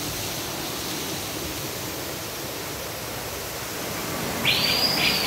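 Steady rush of a small waterfall splashing over rocks into a stream pool. Near the end a high insect buzz starts up over it and becomes the loudest sound.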